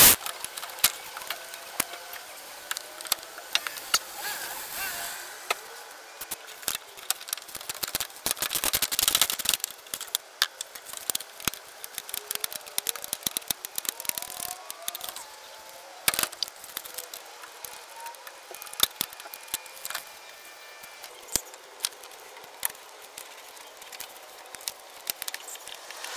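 Metal tools and parts clinking and rattling during hands-on work in an engine bay. There are scattered sharp clicks, a denser rattling stretch about eight to ten seconds in and a single sharp knock about sixteen seconds in.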